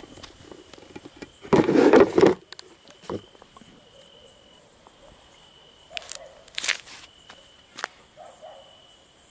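A cricket trilling steadily in the background, with scattered footsteps and sharp clicks. About a second and a half in, a loud rustling scuff lasts under a second.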